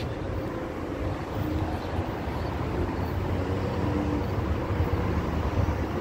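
Low, steady rumble of a train approaching from far down the line, growing slightly louder.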